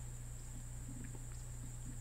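Steady high-pitched drone of an insect chorus, with a low steady hum underneath and a few faint ticks.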